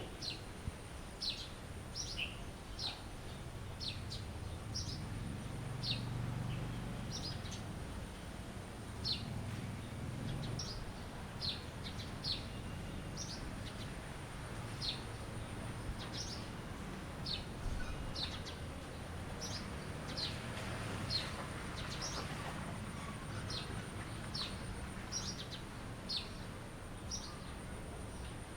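Birds chirping: short, high, downward-sliding chirps repeated roughly once a second over a low background rumble, with a faint steady high-pitched tone beneath.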